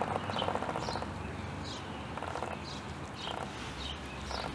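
Domestic cat chewing a freshly caught vole, crunching through its bones in short bursts. Small birds chirp in quick repeated notes in the background.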